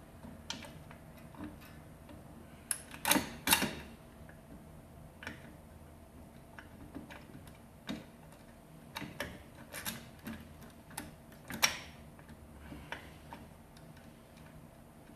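Sparse, uneven metal clicks and clinks of small hardware being handled and fitted: bolts, spacer sleeves and lock nuts going onto a golf-cart disc brake caliper. The two loudest clinks come about three seconds in, and another cluster comes near the end.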